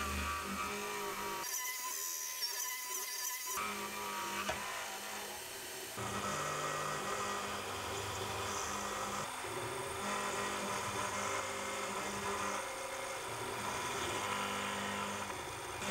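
Benchtop CNC milling machine's end mill cutting metal: a steady high spindle whine over a hiss of cutting noise. The sound changes abruptly a few times, dropping out in the low end for about two seconds near the start.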